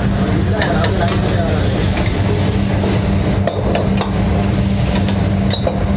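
Metal ladle scraping and stirring rice in a steel wok, with sizzling and a few sharp clanks of ladle on wok, under a steady low hum.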